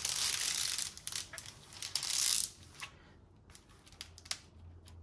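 Clear plastic film on an adhesive diamond-painting canvas crinkling as it is lifted and smoothed for about two and a half seconds. After that come a few faint clicks and rustles.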